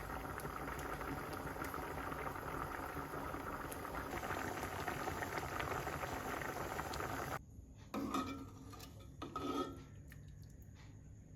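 Cooking in a pot or pan: a steady crackling hiss that cuts off abruptly about seven seconds in. A few clinks and scrapes of utensils against cookware follow.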